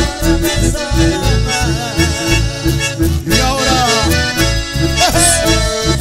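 Live band playing an instrumental passage: a button accordion leads the melody over acoustic guitar and electric bass, with a steady bass beat.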